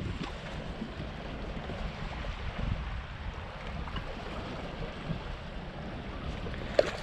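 Wind rumbling on the microphone over water lapping around a small fishing boat, with a single short knock near the end.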